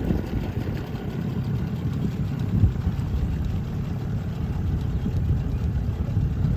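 Boat motor running at low speed on the water, a steady low rumble.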